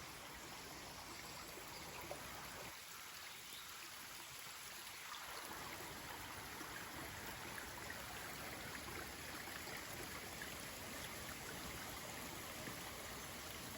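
Small stream of running water flowing, a faint steady rush and trickle.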